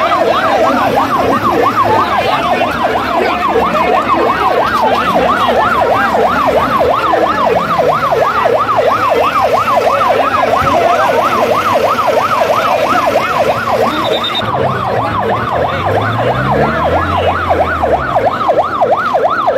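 Emergency vehicle siren in a fast yelp, its pitch sweeping rapidly up and down without a break.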